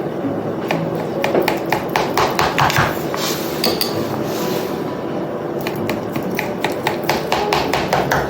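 A knife blade repeatedly clicking and tapping against the bottom of a baking pan as lines are cut through raw kibbeh, in irregular clusters of sharp taps.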